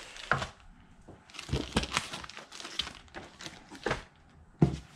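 Packing foam and cardboard being handled and shifted, giving irregular crackles, rubs and light knocks, with a louder knock near the end.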